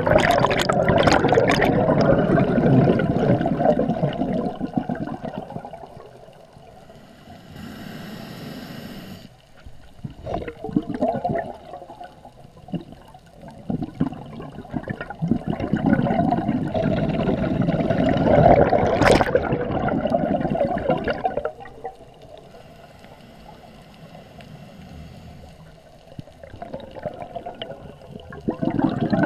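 Scuba diver breathing through a regulator underwater: long stretches of exhaled bubbles gurgling past the camera, separated by quieter spells with a brief even hiss of inhalation, once a few seconds in and again, fainter, after the middle; the bubbles start again near the end.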